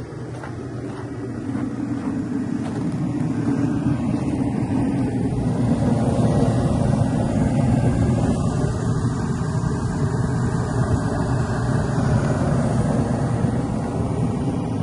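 Kerosene heater running with a steady low roar that grows louder over the first few seconds and then holds, as it blows heat to thaw ice off a heat pump's outdoor coils.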